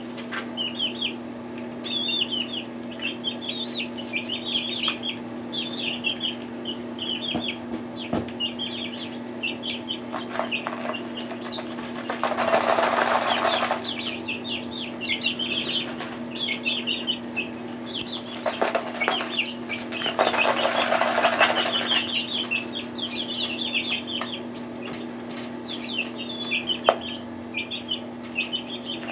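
Young chicks peeping in short, repeated high chirps, while a chick dust-bathes in fine sand and dirt; twice, about 12 and 20 seconds in, comes a rustling, scratching burst of about two seconds as it flaps and kicks the sand over itself. A steady low hum runs underneath.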